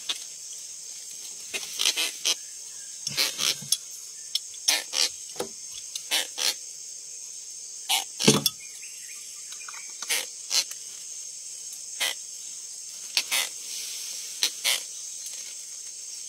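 Insects shrilling steadily in a high band, with irregular sharp knocks and taps from a caught baung catfish being handled in a fibreglass boat, the loudest knock about eight seconds in.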